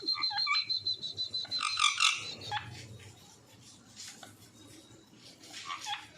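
Pet parrots calling: a high, rapidly pulsing trill with short squawks, loudest about two seconds in, and a few more calls near the end.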